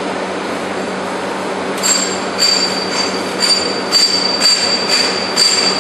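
Glazed-tile roll forming machine running with a steady hum; from about two seconds in, a regular metallic clanking sets in, about two clanks a second, each with a high ringing tone.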